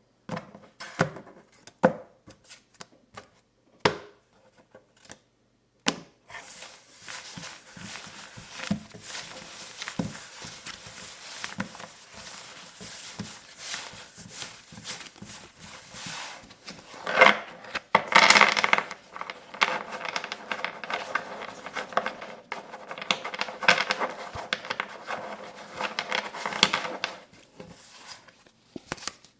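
Playing cards handled close to the microphone for ASMR. First come a few scattered taps and flicks, then a continuous run of rapid rustling and flicking of the cards, which grows louder and fuller past the middle.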